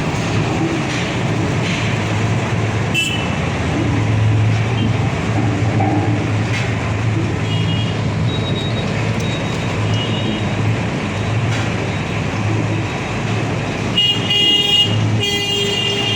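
Static road roller's engine running steadily with a low hum, while vehicle horns honk briefly a few times, most about 14 to 16 seconds in.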